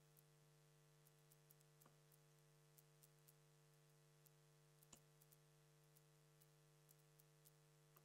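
Near silence: a faint steady electrical hum with a few faint, scattered clicks.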